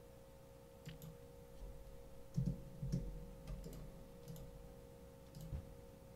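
Quiet room tone: a faint steady hum with a few faint clicks and soft knocks scattered through.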